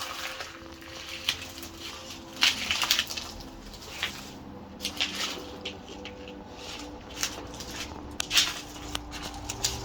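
Scattered crunches, clicks and knocks of people moving through a cluttered storage room, over a faint steady hum.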